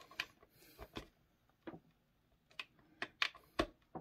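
Plastic LEGO pieces clicking and snapping against a baseplate as they are handled and pressed into place: about eight irregular sharp clicks, the loudest in the last second.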